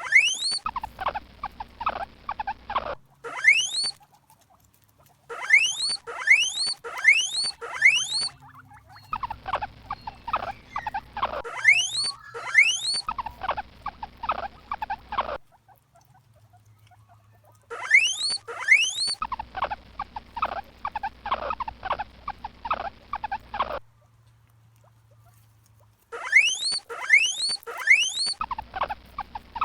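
Guinea pigs (preá) wheeking: groups of two to four sharply rising whistles alternating with rapid trains of short squeaks, several a second, in stretches that stop and start abruptly with brief quieter gaps between.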